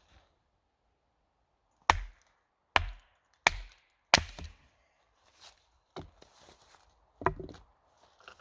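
Wood being chopped: four sharp chops about 0.7 s apart, then two lighter strikes a few seconds later.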